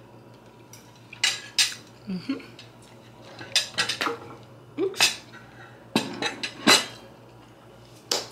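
A metal fork clinking against a ceramic plate while food is eaten from it: a string of sharp, separate clinks a second or so apart, several of them loud.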